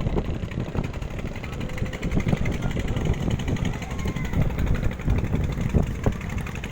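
A small engine running steadily with a low, uneven rumble.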